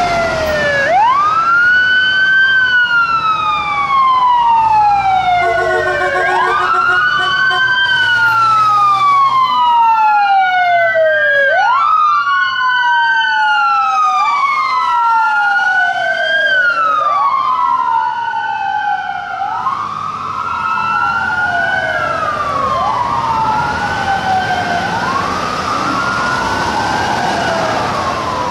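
Wailing emergency sirens of a paramedic rescue ambulance and a sheriff's patrol car responding together. Each sweep rises quickly and falls more slowly, about once every two and a half seconds, and the two sirens overlap out of step. Traffic rumbles underneath.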